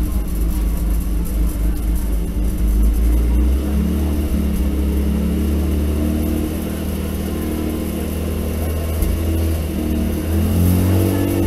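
Toyota 2000GT's 2.0-litre twin-cam straight-six running at idle, its sound echoing loudly through the hall, with the revs lifting slightly a few seconds in and again near the end.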